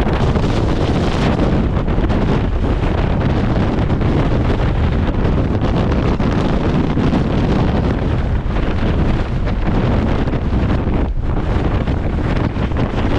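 Gale-force wind buffeting the microphone: a loud, unbroken deep rumble with a hiss above it.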